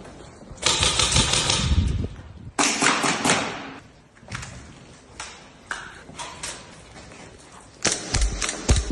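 Gas blowback airsoft rifles firing full-auto bursts: two long rapid strings of shots in the first few seconds, scattered single shots in the middle, then another burst near the end.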